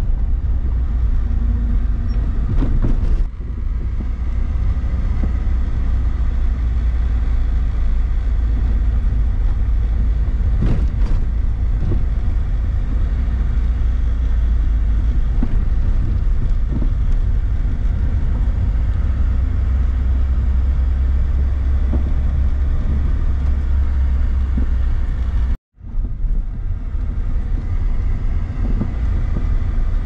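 Car driving along a tarred road: steady low rumble of engine and tyres, with a short dropout to silence about 25 seconds in.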